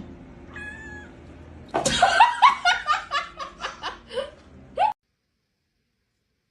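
A person laughing in a quick run of short bursts that fade, ending with one last burst; the sound then cuts off abruptly into silence.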